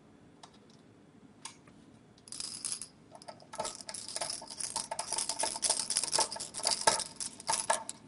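A steel screw being turned with a hand screwdriver into the sheet-metal bottom panel of a computer case to mount a solid state drive: a short rattle a couple of seconds in, then a long run of fast metallic clicking and scraping ringing through the case panel.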